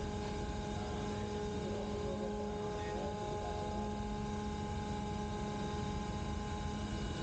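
Steady drone of a ship's machinery in the steering gear room: a low rumble with several steady hum tones over it. The lowest hum drops out for a moment about three seconds in.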